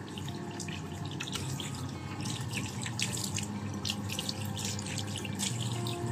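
Tap water running steadily into a sink and splashing over a kitten's wet fur as it is rinsed by hand, with short spattering splashes throughout.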